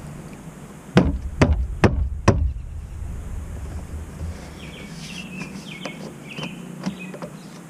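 Four sharp knocks about half a second apart as a roof-rail crossbar is pushed and thumped by hand into place on the Jeep's roof rail, followed by fainter clicks of the fitting.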